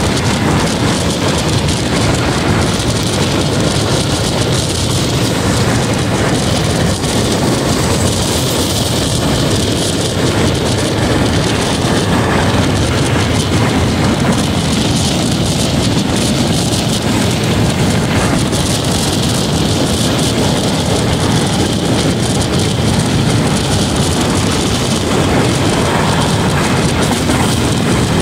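Express passenger train running steadily at speed: a continuous loud rumble and rush of wheels on rail, with rain mixed in.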